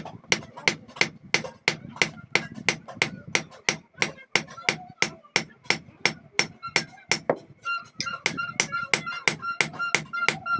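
Hand hammer striking a steel sickle blade blank on an anvil, about three blows a second in a steady rhythm. From about two-thirds of the way through, each blow rings with a clear metallic tone.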